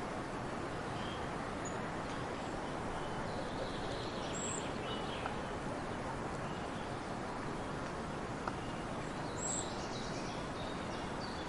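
Small birds give a few short, high chirps, the clearest about four and nine and a half seconds in, over a steady rushing background noise.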